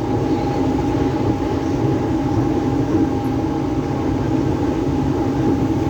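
Mumbai suburban local electric train running steadily: a continuous rumble of wheels on the track with a constant high whine over it.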